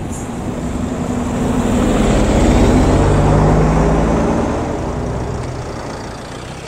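Diesel coach bus passing close by, its engine and tyre noise swelling to the loudest about three seconds in and then fading away.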